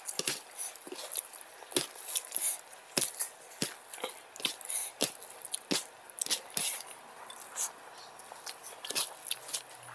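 Close-up eating sounds: fingers squishing rice into wet paneer curry, and open-mouthed chewing with lip smacks, as many short, irregular clicks.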